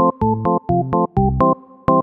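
Electronic background music: short, choppy synthesizer chords in a quick, even rhythm, with a sharp click on many beats.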